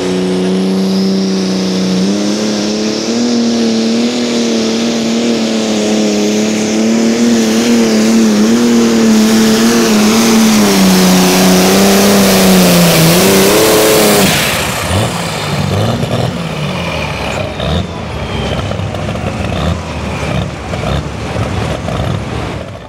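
Turbocharged diesel pulling tractor running at full throttle under load, its engine note wavering as it pulls, with a high hiss overhead. About 14 seconds in the full-power note cuts off as the throttle is let off at the end of the pull, leaving a lower, uneven engine sound that rises and falls as it slows.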